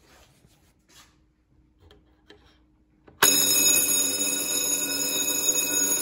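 Simplex vibrating fire alarm bell ringing continuously, its hammer buzzing against the iron gong; the ringing starts suddenly about three seconds in, after a few faint clicks. The bell is working properly after its contact screw was tuned.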